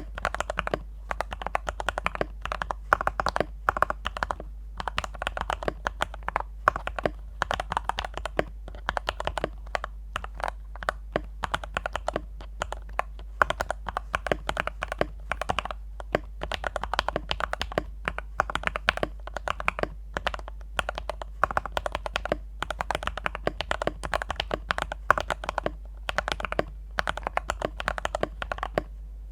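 Fast, continuous typing on a Yin Chen D84 mechanical keyboard with Gateron Brown tactile switches and a polyester-cotton-filled case: a dense run of keystrokes with a few short pauses.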